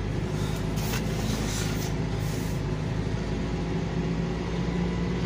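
Mitsubishi 2.6-litre four-cylinder engine of a 1981 Plymouth Reliant K wagon idling steadily while still warming up, heard from the driver's seat.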